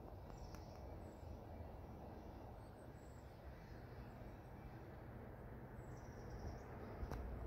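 Quiet outdoor ambience: a few brief, faint, high bird chirps over a low, steady background rumble that swells slightly near the end.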